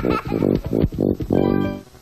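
Television promo jingle music: a pitched melody in a run of short notes that cuts off just before the end.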